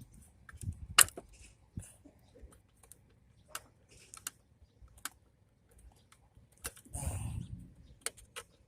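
Scattered sharp clicks and light taps of metal parts being handled while a piece is unscrewed from a scrapped desktop PC, the loudest click about a second in, with a short scraping rustle about seven seconds in.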